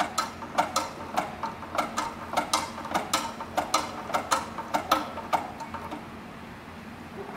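Pump lever of a manual hydraulic paper reel lifter being worked up and down, its pump mechanism clicking sharply about two to three times a second. The clicking stops about five and a half seconds in, leaving a faint steady hum.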